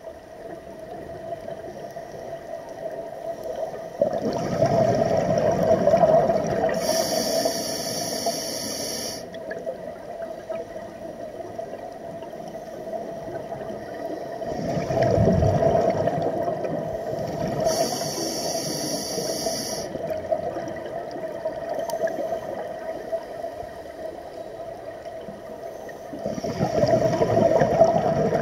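Scuba regulator breathing heard underwater: three slow breaths, each a rumbling gush of exhaled bubbles followed by a high hiss from the regulator, over a steady faint tone.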